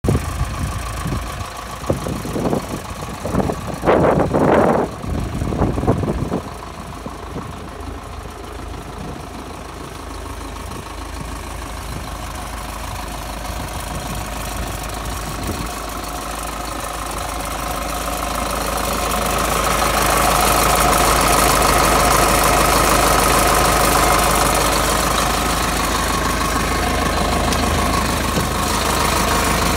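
Caterpillar D4H Series II crawler dozer's diesel engine idling steadily, growing louder about two-thirds of the way through. A few loud bursts of noise on the microphone come in the first few seconds.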